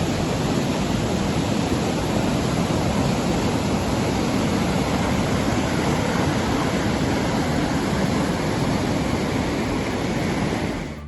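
Steady rushing of fast-flowing floodwater, a loud, even roar that cuts off suddenly near the end.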